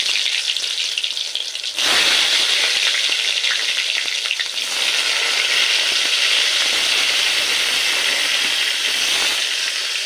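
Eggplant pieces sizzling as they fry in hot mustard oil in a kadai. The sizzle jumps louder about two seconds in, as more pieces go into the oil, and then stays steady.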